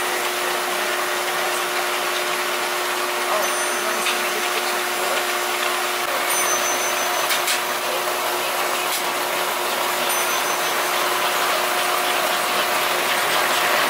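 Electric toy trains running: a steady mechanical whir and hiss with a constant hum, and a few faint clicks.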